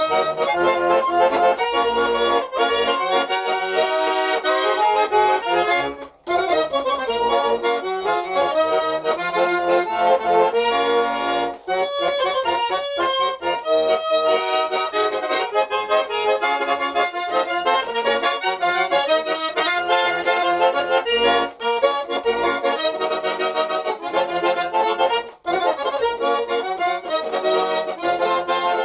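Nizhny Novgorod garmon, a Russian button accordion, played solo: a melody over chords, with brief breaks about six, twelve and twenty-five seconds in.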